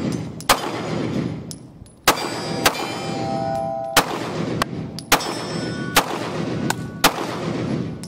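Smith & Wesson Shield Plus pistol firing about eight shots at an irregular pace as the shooter moves between targets. Hit steel targets ring briefly after several of the shots.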